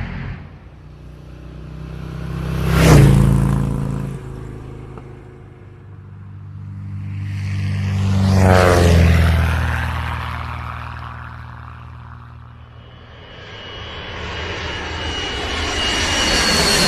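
Engine-driven vehicles passing by one after another: a quick, loud pass about three seconds in, a slower pass in the middle whose pitch falls as it goes by, and another growing louder near the end.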